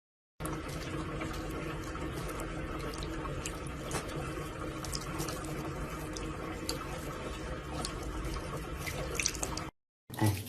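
Steady running water, with a few light clicks near the end.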